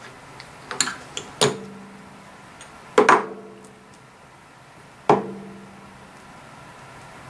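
Two-piece metal injection mold handled by hand: a few light clinks about a second in, then two sharper metallic knocks with a short ring, about three seconds and five seconds in, as the halves are knocked together and set down.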